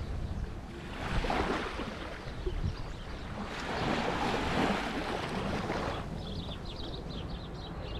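Small waves washing up on a sandy beach in two soft swells, with wind rumbling on the microphone. High twittering chirps come in over the last couple of seconds.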